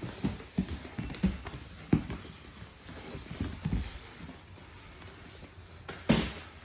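Grappling on mats: irregular thuds and scuffles as bodies shift and land during a jiu-jitsu roll, with the loudest thump about six seconds in.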